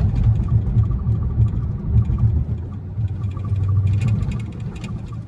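Dodge Charger's V8 engine and exhaust droning low and steady while cruising at about 45 mph, with road rumble, heard inside the cabin.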